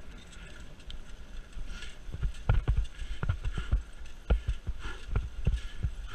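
Mountain bike rattling and knocking as it rides over a bumpy, leaf-covered dirt trail, with a low rumble under it. The knocks are irregular, sparse at first and more frequent from about two seconds in.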